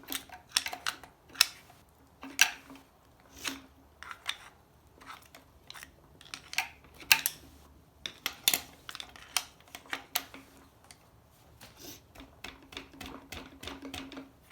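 Irregular sharp metal clicks and scrapes of a screwdriver prying at a neutral safety switch on the selector shaft of an AW4 automatic transmission. The switch is stuck fast, gunked up with dirt.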